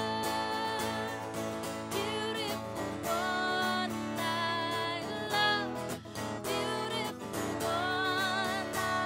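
A woman singing a worship song while strumming an acoustic guitar, holding long notes with a wavering vibrato.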